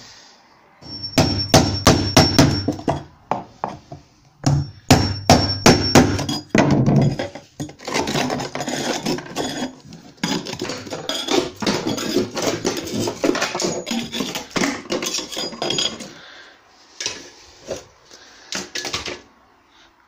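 Hammer blows struck in quick runs of several at a time, with a thin high ring under the first runs and a long busy stretch of knocking in the middle.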